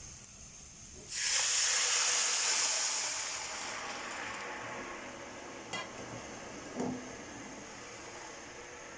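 A hot pot of bhuna khichuri hisses with a sudden loud burst of sizzle and steam about a second in, the sound of water going into the hot frying rice, then slowly settles. Two light knocks come a little past the middle.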